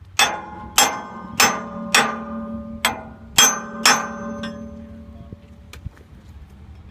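Hammer tapping the pillow block bearing of a sawmill band wheel seven times, each blow ringing on afterwards, to shift the bearing and square the wheel. The ringing dies away after the last blow.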